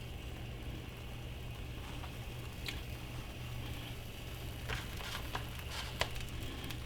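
Faint sizzling of margarine-coated rye bread frying in a skillet, over a steady low hum, with a few light sharp clicks from about three seconds in.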